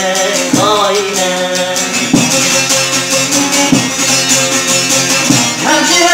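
A long-necked saz (bağlama) strummed in a folk rhythm with a strong accent about every second and a half, and a man singing in a Middle Eastern folk style about half a second in and again near the end.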